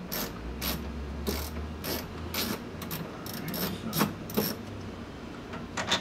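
Ratcheting nut driver clicking through a series of turns, about ten uneven clicks with a quick pair near the end, as small 8 mm screws are backed out of a truck door.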